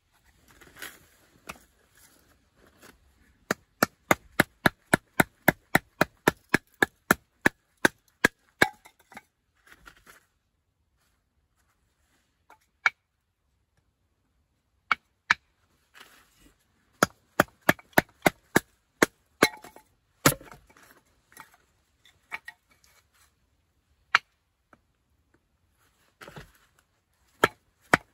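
Sharp wooden knocks of a knife blade being tapped into a stick of dry lumber to split it into kindling, in quick runs of about three or four strokes a second, broken by pauses.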